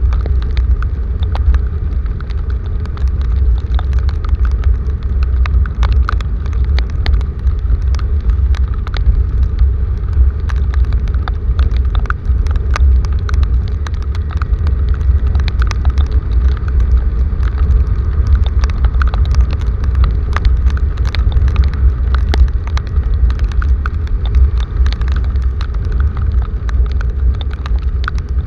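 Heavy rain falling, with many sharp, irregular drop impacts close to the microphone over a loud, steady low rumble.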